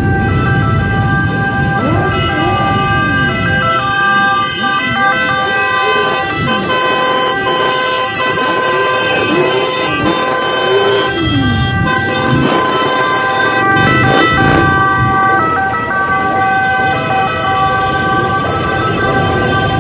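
Several horns or siren-like signals sound together in steady tones the whole time, over a group of motorcycle engines that rev up and down again and again.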